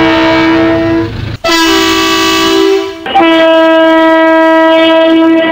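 Locomotive multi-chime air horn sounding a loud, steady chord of several notes in three long blasts, with brief breaks about a second and a half and three seconds in.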